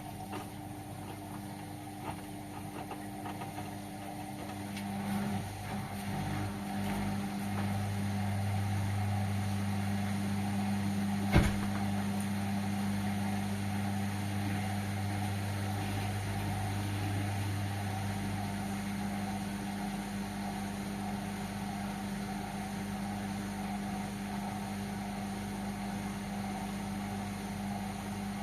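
Indesit washing machine running with a steady motor hum. The hum grows louder about five seconds in, and there is one sharp click about halfway through.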